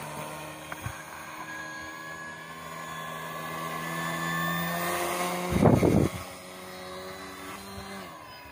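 Homemade RC boat's electric motor and propeller whining steadily, its pitch creeping up through the middle and dropping about eight seconds in. A brief, loud rush of noise about five and a half seconds in.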